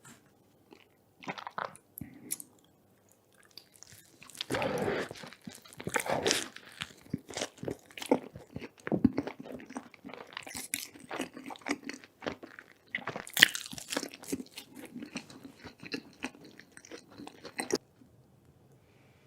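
Close-miked eating: a person biting, crunching and chewing food in quick irregular clicks and crackles. It stops near the end.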